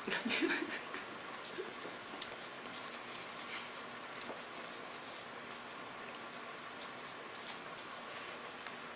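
Faint, scattered scratching and dabbing of a Chinese ink brush on paper over steady hiss, with a brief louder low-pitched sound in the first second.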